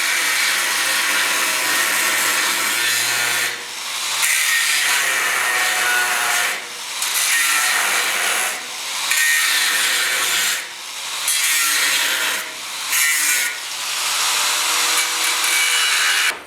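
A cut-off wheel (zip cut) cutting through rusted sheet steel of the Bronco's body to remove the rusted section for a patch. It runs in about seven passes, easing off briefly between them.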